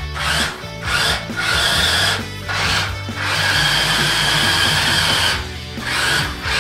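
Electric motor of an RC model Hummer whining in short throttle bursts, with a longer steady run through the middle; background music plays underneath.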